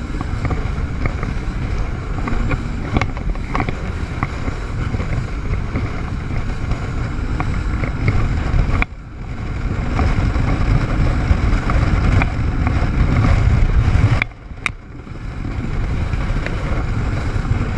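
Jet ski running at speed, its engine rumble mixed with rushing water and heavy wind buffeting on a GoPro microphone. The sound drops off suddenly twice, about nine and fourteen seconds in, and builds back up within a second or two.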